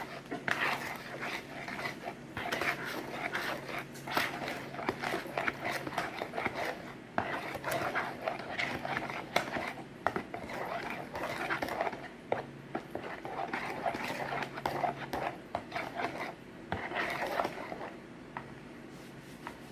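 A spoon stirring a mixture in a bowl: a run of irregular scrapes and clicks, with a faint low hum that comes and goes.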